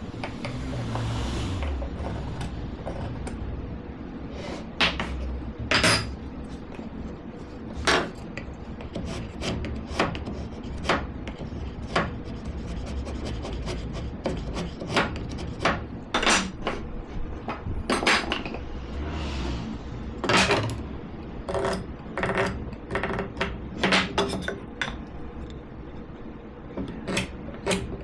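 Hand woodworking at a bench: irregular sharp knocks and clicks of wooden pieces and hand tools being handled and set down, with a couple of short stretches of scraping or rubbing on wood.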